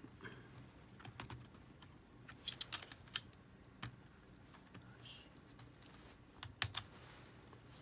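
Small, sharp plastic clicks and taps as a replacement laptop battery is handled and pressed into place in the open laptop case, with a quick run of clicks about two and a half seconds in and the loudest few near the end.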